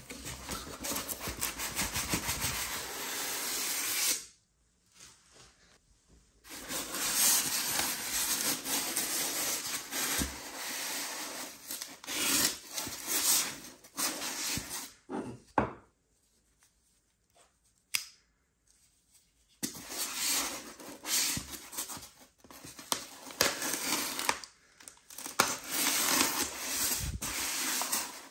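Cardboard box and styrofoam packing block being handled: scratchy rubbing and scraping of foam against cardboard in uneven bursts, with two pauses of a couple of seconds.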